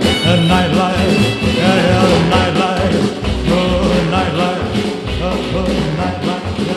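Upbeat rock and roll song playing with a steady beat.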